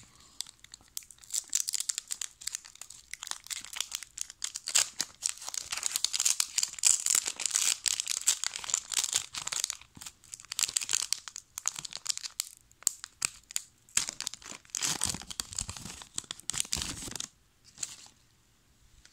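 Foil Pokémon Sun & Moon booster pack wrapper crinkling and being torn open by hand: a long run of crackly rustling, thinning out briefly past the middle, with one last short rustle near the end.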